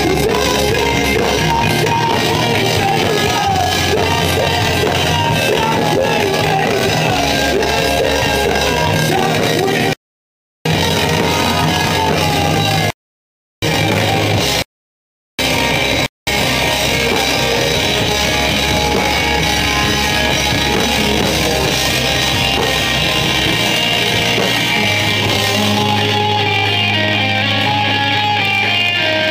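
Rock band playing live: electric guitars, bass and drum kit with vocals. The recording cuts out to silence briefly four times around the middle, and near the end the music settles onto a steady low held note.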